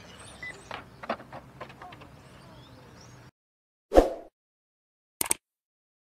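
Faint outdoor ambience with a few light clicks that cuts off abruptly about three seconds in, followed by a subscribe-button animation's sound effects: a short, loud pop about four seconds in and a quick click just over a second later.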